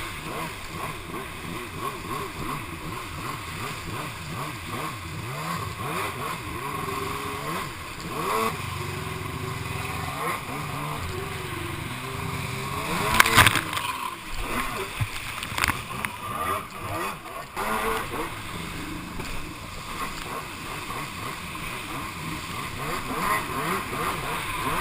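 Two-stroke stand-up jet ski engines revving and easing off, their pitch rising and falling, over surf and splashing water. A short loud burst comes about thirteen seconds in.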